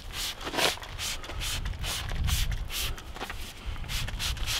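Hand trigger spray bottle squirting cleaner in quick repeated spritzes, about two to three short hisses a second.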